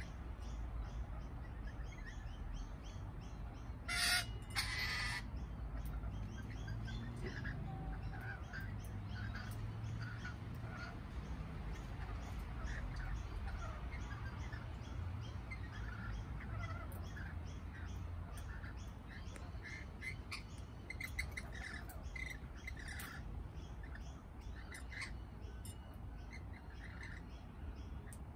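Lorikeets feeding, with short chirping calls throughout and two loud screeches close together about four seconds in, over a steady low rumble.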